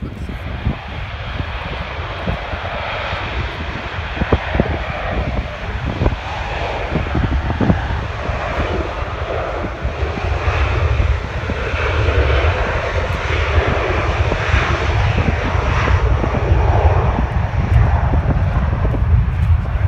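Jet airliner's engines running as it moves along the runway: a steady jet roar that grows louder over the second half.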